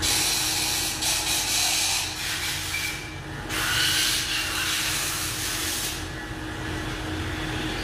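Two long bursts of loud hissing, with a short break about three seconds in, over a steady machine hum.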